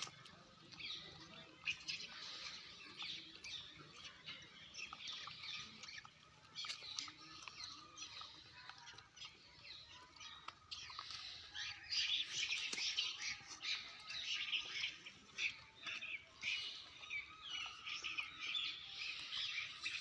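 Small birds chirping: many short, high calls overlapping, busier and louder in the second half.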